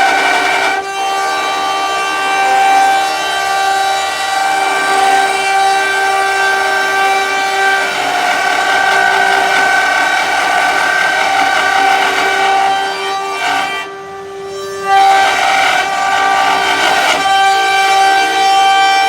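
Multi-spindle CNC wood router running, its spindles giving a steady high whine over the rough noise of machining wood. The sound drops for about a second near the end, then comes back.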